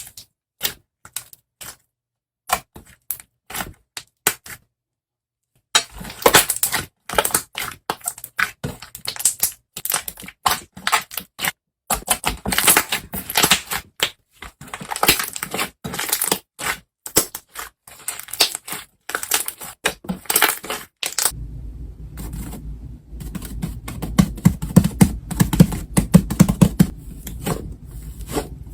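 Slime being worked by hand, making rapid sharp clicks and crackles. The clicks are sparse at first, turn dense and continuous about six seconds in, and from about 21 seconds in sit over a steady low hum.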